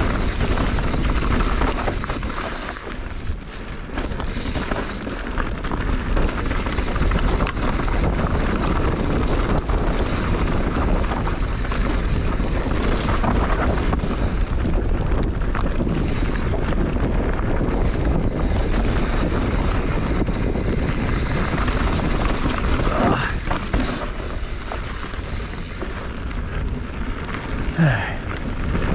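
Wind rushing over the camera microphone, mixed with the tyre and frame rattle of a mountain bike riding down a loose, rocky shale trail.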